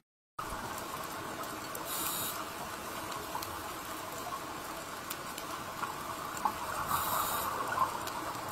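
Underwater ambience picked up by a diving camera: a steady wash of water noise with scattered faint clicks, cutting in just after a brief silence. Two short high hisses come about five seconds apart.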